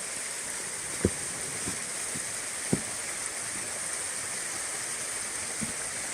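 River flowing, a steady rushing sound, with two brief low thumps about one and three seconds in.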